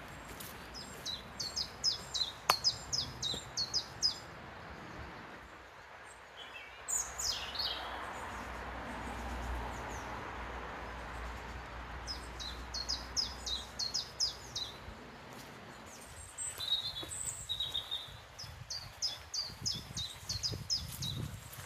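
Small songbird singing: a run of quick, high, repeated notes heard three times, with a few single chirps between the runs.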